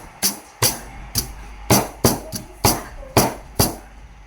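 A heavy knife chopping, about nine hard strikes at an uneven pace, cutting chicken through to the bone.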